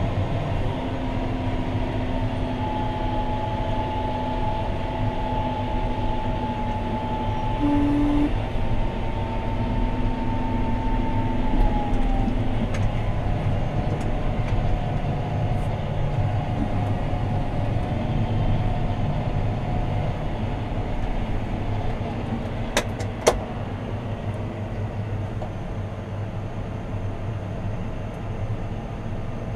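John Deere 6215R tractor's six-cylinder diesel running steadily under ploughing load, heard from inside the cab, with a steady whine that drops slightly in pitch about twelve seconds in. Two sharp clicks come about two-thirds of the way through.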